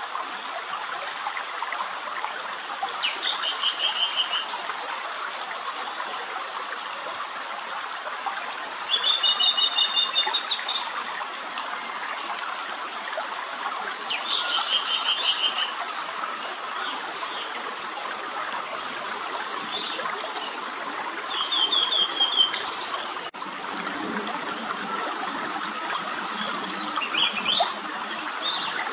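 A tledekan laut singing short, high trilled phrases, one every five to six seconds, over the steady rush of running water.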